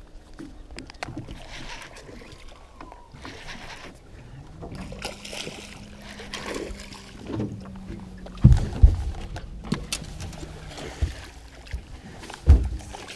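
Thuds and knocks on a small aluminium fishing boat's hull and deck, with water splashing, while a hooked flathead is brought to the boat. A low steady hum comes in about a third of the way through and runs for a few seconds, and the loudest thuds fall near the middle and again near the end.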